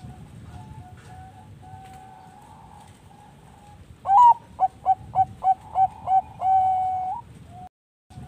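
Zebra doves (Thai-bred perkutut bangkok) cooing. Faint coos sound at first. About four seconds in, one bird gives a loud full song: a rising opening note, a quick run of about seven short coos, then one long held note.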